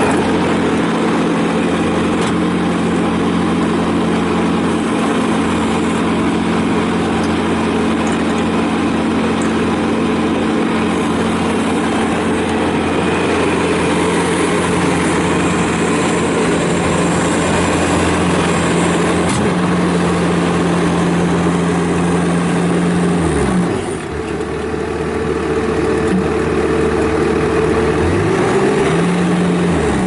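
2015 Bobcat S550 skid steer loader's diesel engine running steadily as the machine is driven and its loader arms raise and lower the bucket. About three quarters of the way through, the engine speed drops for a few seconds, then picks back up.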